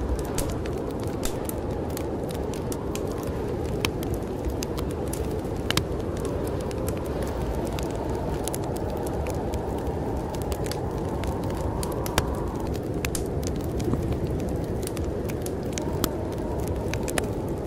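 A fireplace crackling with frequent sharp pops, over a steady low rush of snowstorm wind.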